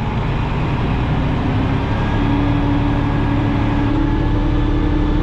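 Dump truck's engine running under load as the PTO-driven hydraulic pump raises the loaded dump bed; about two seconds in the engine note steps up and then holds steady.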